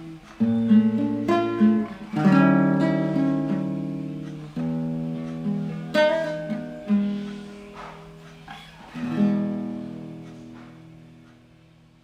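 Nylon-string classical guitar played solo: a slow close of plucked notes and chords, each left to ring, the last chord about nine seconds in fading out by the end.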